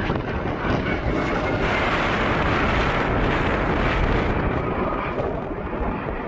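Aircraft engine noise mixed with wind buffeting the microphone, swelling in the middle, with a faint steady whine.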